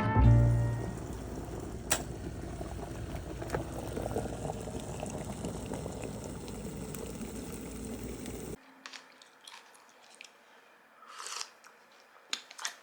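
A steady hissing, crackling noise with a few sharp ticks, like liquid boiling or frying, that cuts off suddenly past the middle. It is followed by a few soft clicks and rustles.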